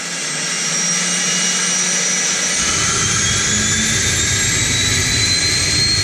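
Aircraft engine running, swelling in over the first second, with a high whine that slowly rises in pitch and a low rumble that comes in about two seconds in.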